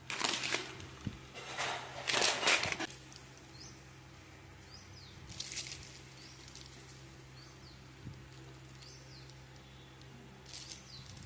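Plastic grocery packaging crinkling in the hand, first a rice bag and then a wrapped bar packet, in a few short bursts, the loudest in the first three seconds. Faint high chirps sound now and then in the background.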